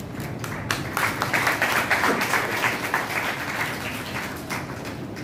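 Audience applauding. The applause starts about a second in and dies away near the end.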